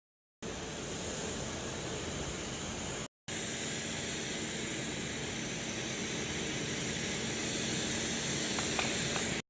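Steady hissing noise with a faint low hum under it, cut off briefly twice by edits. A few faint clicks come near the end.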